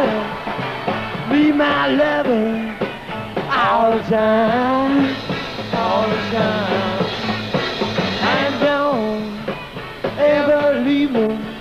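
Rock band playing a song, with a male lead singer singing into a microphone over electric guitar and the band.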